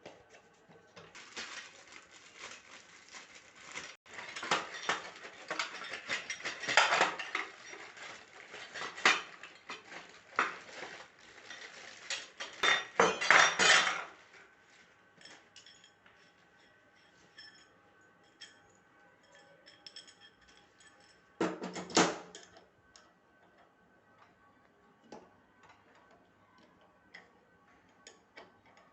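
Metal parts and tools clinking and clattering as they are handled, densest over the first half, with one more short burst of clatter a little past the middle.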